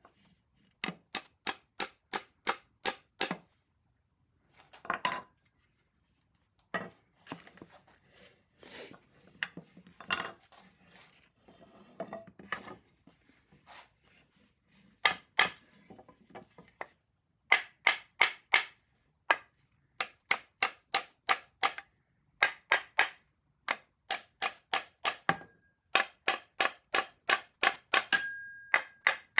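A hammer tapping a wedge-shaped pin into a wedged nail tenon joint in a chair rim, in quick runs of five to eight sharp taps, about three to four a second, with short pauses between runs. Each tap drives the pin further in and draws the joint tighter.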